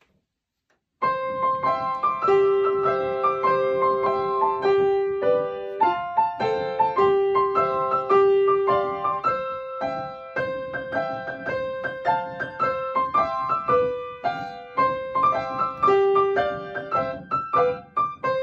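Upright piano played by hand: a melody of struck notes over a repeating accompaniment, starting about a second in.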